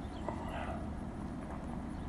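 Vehicle driving over a rough farm track: a steady low rumble with a few light knocks and rattles.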